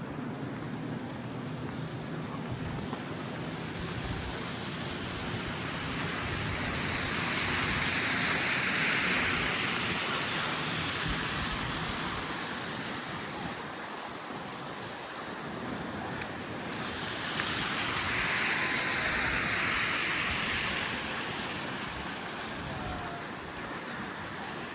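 Street traffic on wet, slushy pavement: two vehicles pass one after the other, each a swelling and fading hiss of tyres through slush over the low rumble of the city.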